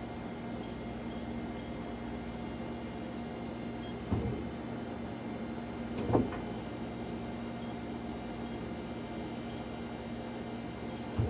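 Mori Seiki NLX-2500 CNC lathe running with a steady electrical hum. Three short clunks sound, about four, six and eleven seconds in.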